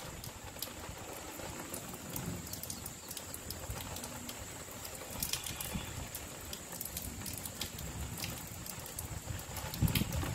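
Light rain tapering off: scattered drops pattering and dripping over a faint steady hiss, with a brief low rumble near the end.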